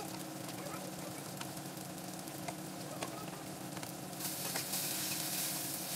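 Grilled onions sizzling as they fry in a skillet, a steady hiss with a few light clicks, growing louder about four seconds in.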